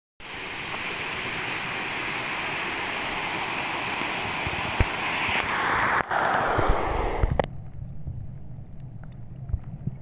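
Steady rush of a waterfall and stream. About seven seconds in the sound turns suddenly muffled and dull, leaving a low rumble with small clicks, as the microphone goes under the water.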